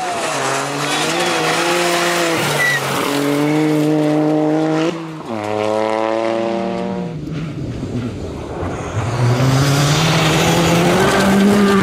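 Rally cars on gravel stages, their engines revving hard with the pitch climbing and stepping down through the gears, and a sharp drop in the engine note about five seconds in. Tyres scrabble on loose gravel. A new car comes in about nine seconds in with a rising engine note.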